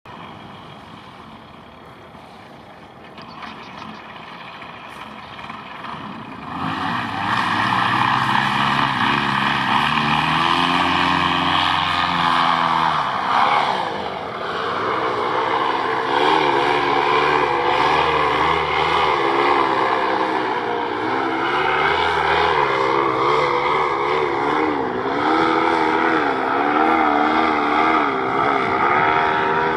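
A small engine or motor running, its pitch rising and falling repeatedly, loudest from about seven seconds in, over rough noise from strong wind.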